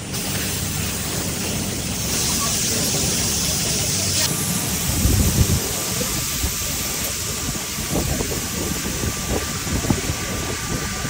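Iron foundry noise: a steady rushing and hissing of furnace and molten iron, changing abruptly about four seconds in, then irregular crackles and low knocks as molten iron is poured from a ladle into cast-iron wok moulds.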